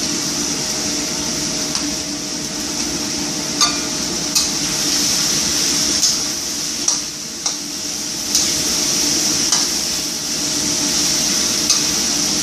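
Pumpkin and mushrooms sizzling in hot oil in a pan while being stir-fried, with a steady frying hiss and occasional sharp knocks of the spatula against the pan, over a steady low hum.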